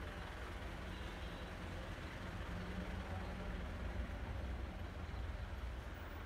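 Steady low rumble of an engine running, even throughout with no distinct events.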